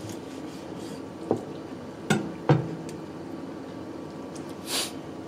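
Kitchen knife cutting through boiled octopus tentacle on a plastic cutting board: three sharp knocks of the blade meeting the board, the last two close together, then a short swish near the end, over a steady low hum.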